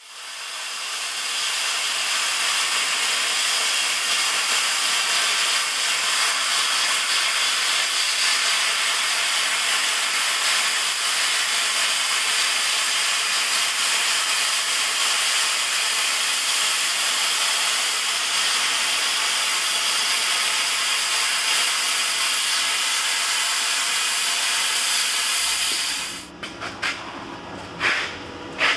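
Handheld plasma cutter cutting through steel plate: a steady, loud hiss that holds for about 26 seconds and then cuts off. A few light clicks and knocks follow near the end.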